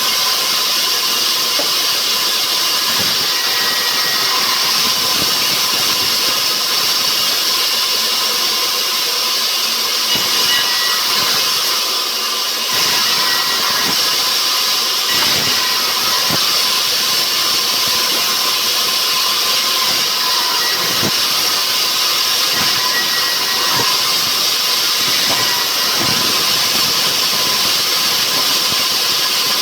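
Rubber wood sawmill machinery running steadily: a loud, even mechanical noise with a thin steady whine in it.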